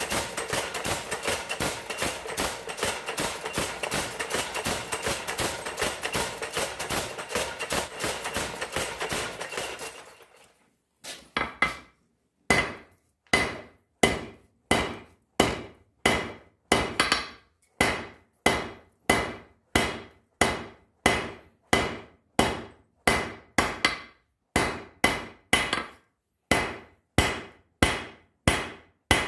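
Hand-forging steel with a hammer: a fast run of rapid blows for about the first ten seconds, then, after a short pause, slower, evenly spaced strikes about two a second, each with a brief metallic ring.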